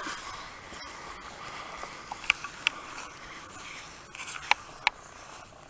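Footsteps on a grassy woodland path, with a few sharp crackles, two about two seconds in and two more after four seconds, over a steady hiss.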